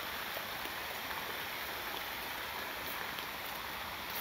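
Steady rush of water splashing from a swimming pool's fountain.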